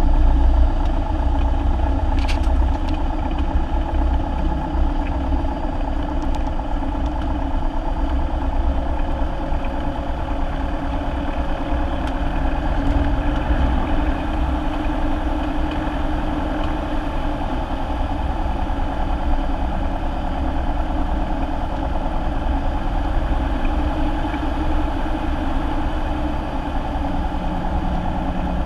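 Cessna's propeller piston engine idling at low power during the landing roll-out and taxi, a steady drone. It is heard through the cabin from behind the windshield.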